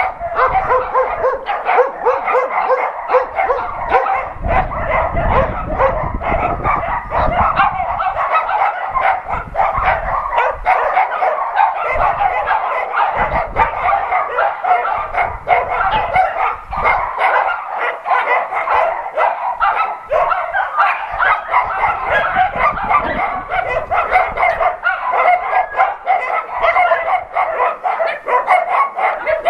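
A pack of dogs and puppies barking and yapping all at once, in a constant overlapping chorus with no pause.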